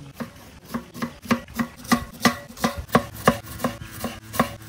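Large kitchen knife slicing red onions on a round wooden chopping board, the blade knocking on the wood in a steady run of about three strokes a second.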